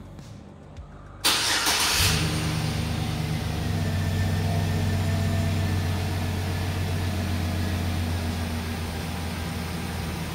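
2013 GMC Sierra pickup's engine started by its newly installed remote starter. After a short crank a little over a second in, the engine catches and settles into a steady idle.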